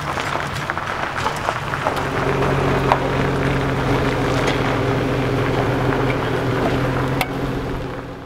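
A vehicle engine idling steadily, settling into an even low hum about two seconds in, with a few light clicks and knocks over it, then fading out at the end.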